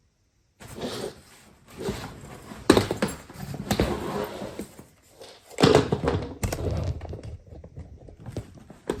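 Irregular clicks, knocks and rustling of hands working on a suitcase's plastic wheel hub while fitting small screws and nuts into its rivet holes, starting about half a second in.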